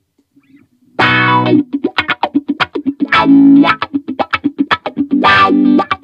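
Squier Affinity Jazzmaster electric guitar played through an amplifier. After about a second's pause a chord is struck and rings briefly, then quick picked notes follow. Two more held chords come around the middle and near the end.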